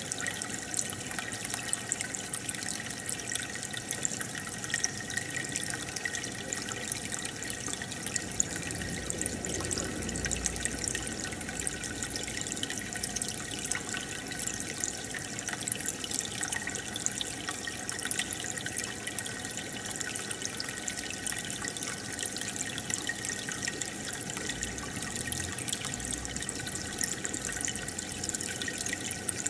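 Aquarium water bubbling steadily, a stream of air bubbles rising and breaking at the surface with a fine, constant trickle and crackle.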